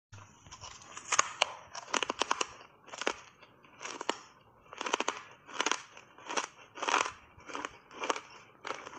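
Hard ice chips coated in matcha powder being bitten and chewed: a steady run of crisp crunches, about one or two a second, as the ice cracks between the teeth.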